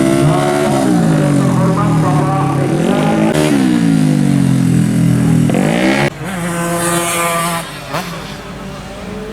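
Tuned 130 cc automatic racing scooter engines revving, their pitch falling and climbing repeatedly. About six seconds in the sound cuts off abruptly to a steadier, quieter engine note with some hiss.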